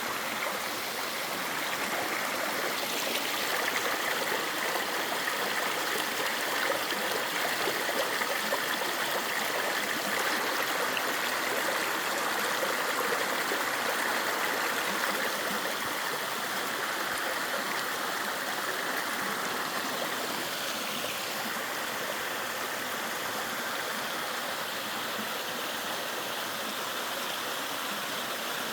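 Mountain valley stream flowing, a steady rush of water that grows a little louder a few seconds in and eases back about two-thirds of the way through.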